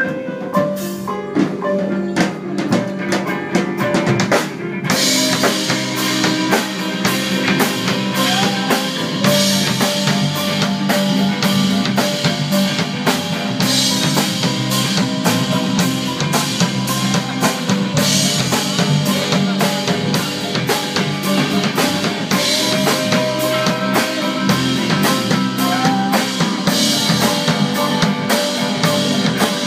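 Band music driven by a drum kit keeping a steady beat; the full kit with cymbals comes in about five seconds in.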